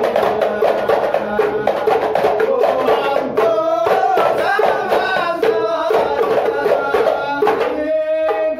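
Hadrah Ishari: hand-beaten frame drums playing a fast, dense rhythm under a group chanting sholawat. The drums stop near the end, leaving the voices holding a long note.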